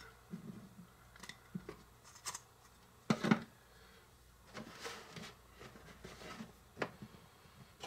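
Faint, scattered handling sounds of food prep: light taps and clicks as crusts go into a small plastic bowl and bread and a paring knife are handled on a small cutting board, with one louder double knock about three seconds in and a soft brushing around the middle.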